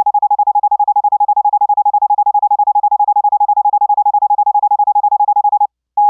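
Pure sine-wave Morse code practice tone at about 828 Hz, keyed by an electronic CW keyer as a fast unbroken string of dits, about twelve a second. The gate threshold is set wide, so the keying is heavy and the dits almost run together. The tone stops briefly near the end, then a few longer elements begin.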